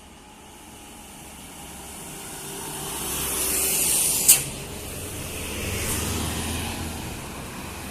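A road vehicle passing close by: tyre and engine noise swells to a peak about four seconds in, with one short sharp hiss at the peak, then a low engine rumble.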